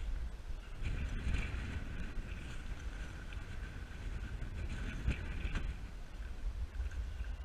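Strong wind buffeting the camera microphone in a steady low rumble, with a single sharp knock about five seconds in.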